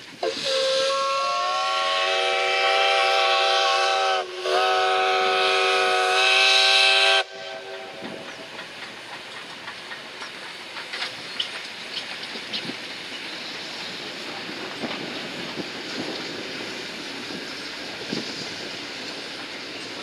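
Steam locomotive whistle blowing a long blast of several tones at once, dipping briefly about four seconds in, sounding again and cutting off sharply after about seven seconds. The train then runs past with a steady rolling noise and scattered clicks from the wheels on the rails.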